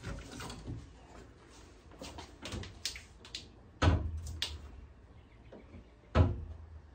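Steel car hood being handled and lowered: a few seconds of light rattles and knocks, then two loud thumps of the hood coming down onto the front of the car, about four seconds in and again near the end.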